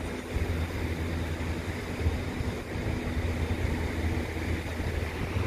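Ocean surf breaking on a beach, with wind rumbling on the microphone.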